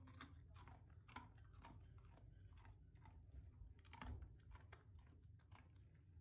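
A dog faintly chewing small treats: an irregular string of short crunches, the loudest about four seconds in.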